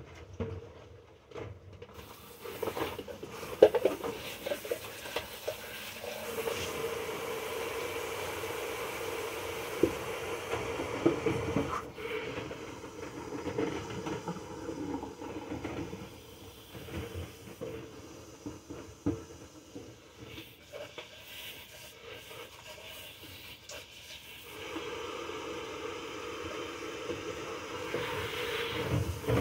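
Food frying in a nonstick frying pan on the stove: a steady sizzle with scattered small crackles and clicks, growing louder for a few seconds at a time.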